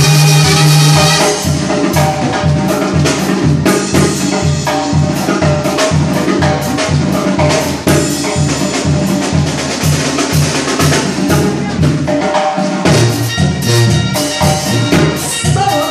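Live Mexican banda music: a brass band with tuba, trombone and trumpets playing over a steady drum beat, with the brass swelling near the end.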